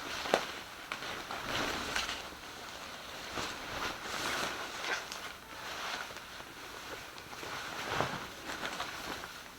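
Rustling of clothes and plastic packaging being handled, in irregular bursts.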